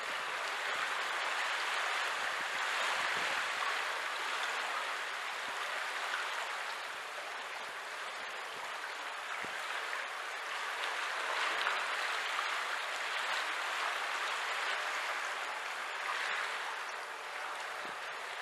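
Steady rush of water in a sea lock chamber, swelling and easing every few seconds.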